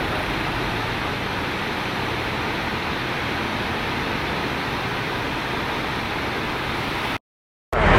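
Steady rush of a flooded river's water. It cuts out abruptly for about half a second near the end.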